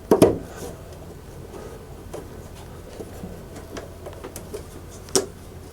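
Knocks and small clicks of a boiler flue pipe being handled and pushed back into its fitting. There is a dull knock at the start and a sharp click near the end, over a low steady hum.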